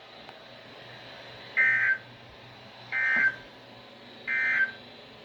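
Three short digital data bursts from a NOAA Weather Radio broadcast, evenly spaced about 1.4 s apart, over faint radio hiss. These are the EAS/SAME end-of-message tones that close the severe thunderstorm warning.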